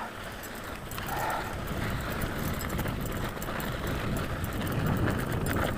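Mountain bike rolling over a rough, dry dirt-and-gravel track: a steady crunch of tyres with many small clicks and rattles, over a low rumble of wind on the microphone.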